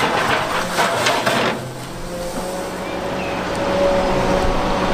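Large tracked excavator fitted with a rock grab, its diesel engine running steadily with a faint hydraulic whine as it lifts a boulder. A dense clatter of knocks fills the first second and a half.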